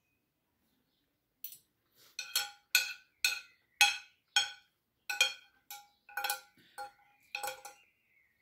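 Metal fork and spoon clinking against a plate while eating: about a dozen sharp, ringing clinks, starting about a second and a half in.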